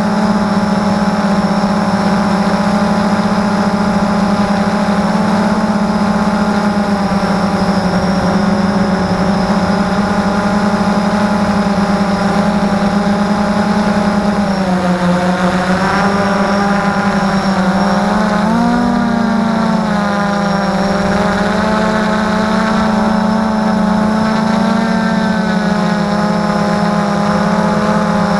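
Multirotor drone's electric motors and propellers heard close up through its onboard camera: a loud, steady buzzing whine whose pitch wavers and shifts about halfway through before settling again.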